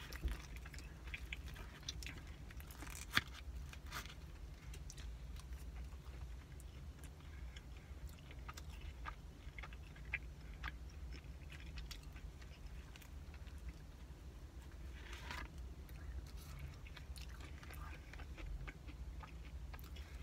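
Quiet chewing of a caramel pecan cinnamon roll, with faint wet mouth clicks over a low steady hum, and one sharper click about three seconds in.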